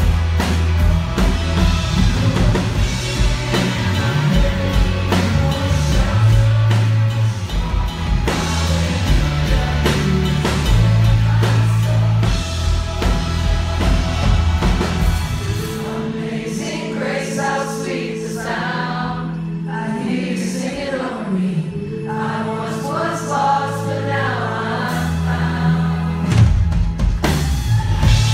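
Live pop-rock band with vocals, electric and acoustic guitars, bass and drums. About halfway through, the drums and bass drop out, leaving singing over lighter backing, and they come back in near the end.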